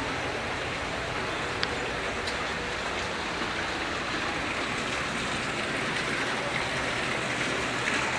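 Steady rushing of running water, an even hiss with no rhythm.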